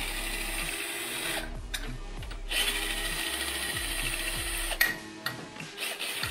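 Cordless impact wrench hammering on a Honda engine's cylinder head bolts through a long extension, in stop-start bursts, trying to break the stubborn bolts loose.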